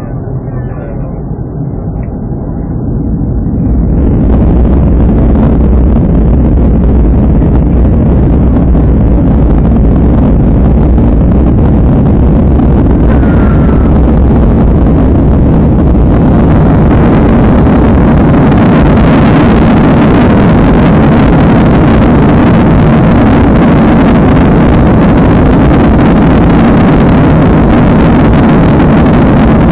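Boeing 737 jet engines spooling up to takeoff power, the noise rising sharply about four seconds in and then staying loud and steady through the takeoff run.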